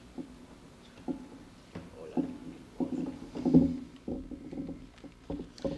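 A series of irregular soft knocks and thuds, about a dozen over a few seconds, each with a short low ring.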